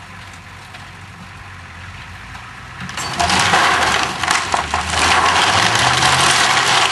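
A low steady engine hum, then about three seconds in a sudden loud rush of cracking and splintering as the old wooden barn, with its corrugated metal roof, gives way and begins to collapse.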